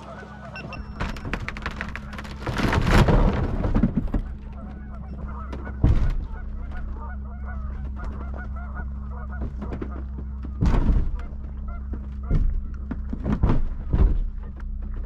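Dodge 5500 wrecker running steadily while its winches start pulling a pickup out of the lake ice, with several sharp cracks and knocks along the way.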